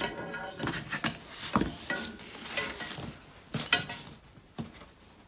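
Metal anti-roll bar drop link and rubber bush being handled and fitted together by hand: a scatter of sharp clinks and knocks, some with a brief metallic ring, the sharpest about a second in.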